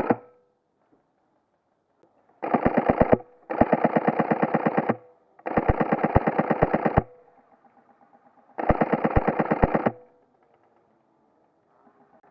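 Airsoft rifle firing four rapid full-auto bursts, each about one to one and a half seconds long, with short pauses between.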